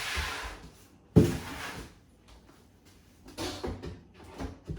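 Household items being handled and set down while a kitchen cupboard is emptied: a rustle, a sharp knock about a second in, then a few softer knocks and clatters near the end.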